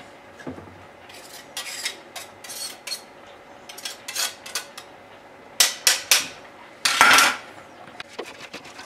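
A knife blade scraping grated fresh ginger off a fine metal rasp grater into a bowl. Several short metallic scrapes sound, with three in quick succession near the middle and the loudest just after the seventh second.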